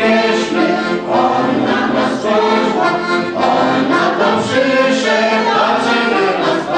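Folk vocal group singing a song to piano accordion accompaniment.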